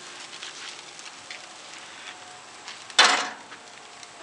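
Seasoned steaks sizzling on a hot grill grate, with scattered small pops and crackles. About three seconds in, a short, loud rush of noise breaks in and fades within half a second.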